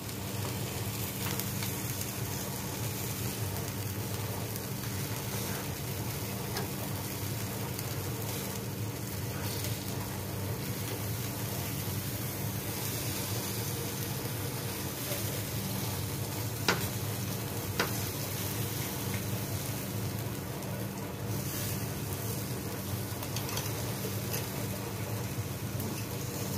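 Chicken pieces sizzling steadily as they cook on the grill after being turned. Two short sharp clicks sound about a second apart, two-thirds of the way through.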